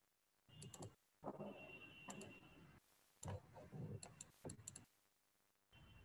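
Near silence broken by several short runs of faint clicks from a computer mouse being clicked and scrolled.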